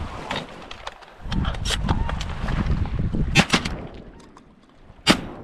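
Duck-hunting shotguns firing about five shots in quick succession, from two shooters. The last shot, near the end, is the sharpest, and two come close together just past the middle.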